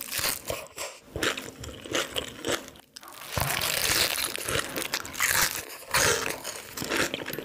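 Close-miked eating sounds: crisp crunching and chewing of crispy fried food. The crunching grows louder and more continuous from about three and a half seconds in, as a big bite is taken.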